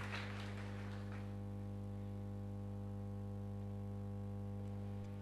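Applause dying away about a second in, leaving a steady low electrical mains hum.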